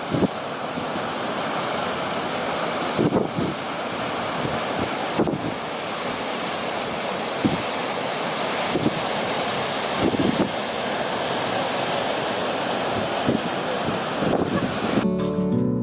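Ocean surf washing steadily, with wind buffeting the microphone in low gusts every couple of seconds. Near the end the surf cuts off abruptly and music begins.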